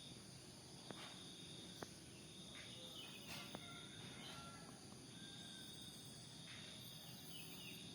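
Faint, steady chirring of crickets or other insects, with a few soft clicks. Several brief, faint bird whistles and chirps come in over the middle and near the end.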